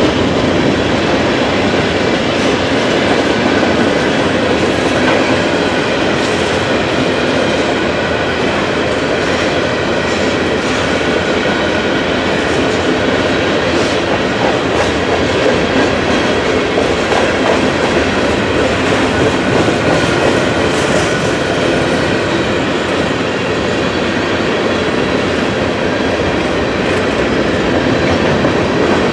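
Freight cars of a long Norfolk Southern freight train rolling steadily past, their wheels clattering over the rail joints.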